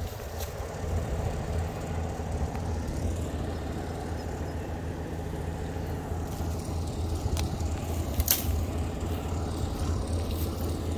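An engine running steadily at one speed. A few short, sharp cracks break in about halfway through.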